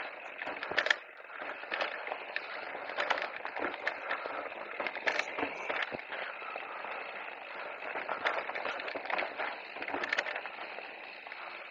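E-mountain bike tyres crunching and crackling over a loose, rocky trail surface, with many scattered clicks and knocks of stones and the bike rattling.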